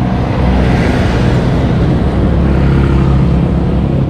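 Motor scooter's engine running steadily while riding, under a constant rushing road and air noise.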